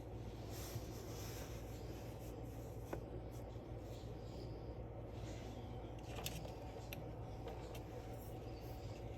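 Faint room hum with scattered light rustles and a few soft clicks, like small objects being handled on a table.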